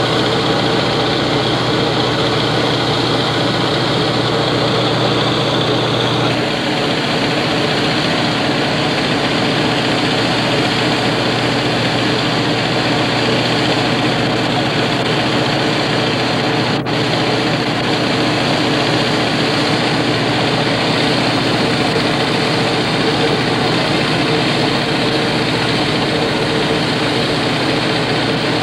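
A fishing boat's engine running steadily, heard on deck as a constant loud drone; its tone shifts slightly about six seconds in.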